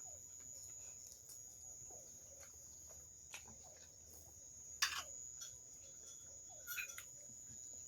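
Eating sounds: quiet chewing and mouth smacks with a few sharp clicks, the loudest about five seconds in and a short cluster near the end, over a faint steady high-pitched tone.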